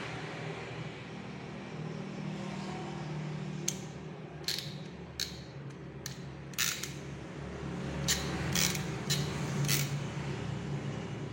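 Sharp clicks and clacks of an RJ45 crimping tool being handled and worked, about ten scattered through the middle and latter part, over a steady low hum.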